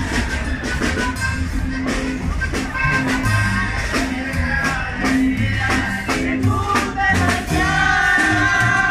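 Live norteño street band playing: an accordion melody over an upright bass line, with guitar and drum kit keeping the beat.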